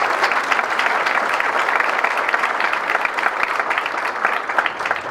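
Large audience applauding, a dense, steady clapping of many hands.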